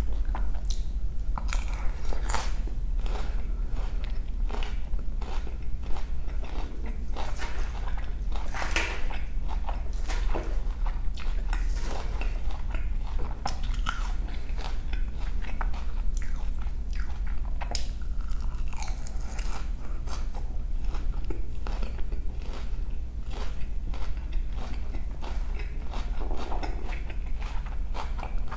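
Close-up crunching and chewing of a chicken Cobb salad's crisp lettuce leaves with ranch dressing: many short crisp crunches scattered throughout.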